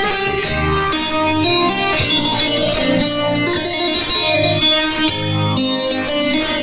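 Instrumental music led by plucked guitar, with a repeating bass pulse under it.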